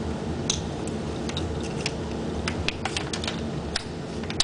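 Scattered light clicks and taps from handling the shotgun and its red dot sight, over a steady low hum. No shot is fired.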